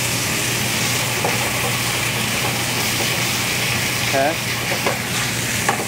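Vegetables sizzling in a sauté pan over a gas burner, just deglazed with white wine, while they are stirred with tongs, over a steady low hum.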